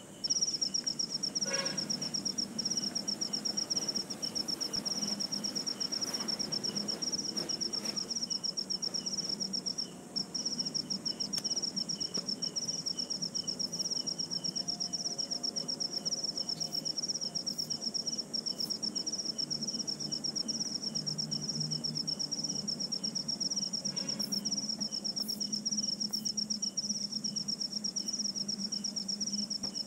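Insects trilling in a continuous high, finely pulsing buzz that breaks off briefly about ten seconds in, over a faint low hum.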